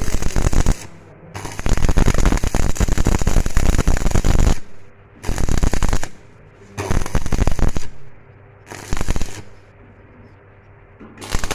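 Electric arc welding on sheet-metal bodywork: the arc crackles and sizzles in a string of short welds, each lasting about half a second to three seconds, with brief pauses between them.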